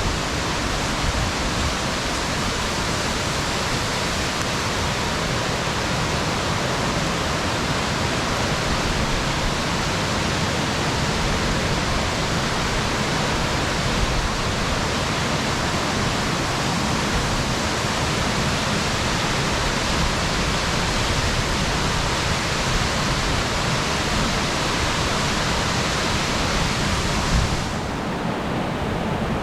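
Waterfall rushing: a steady, even wash of falling water. Near the end the sound suddenly turns duller as the highest part drops away.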